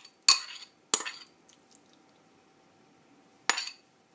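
Metal spoon clinking against china as beef in sauce is spooned out of a serving dish onto a plate of noodles: three sharp clinks with a short ring, two in the first second and one more near the end.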